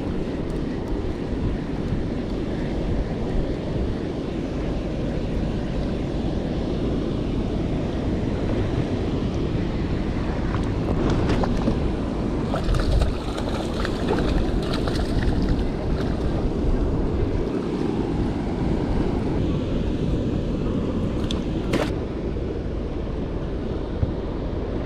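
Steady wind buffeting the microphone over the wash of sea surf around a small boat. There is a burst of short clicks and splashy hiss about halfway through, and one sharp click near the end.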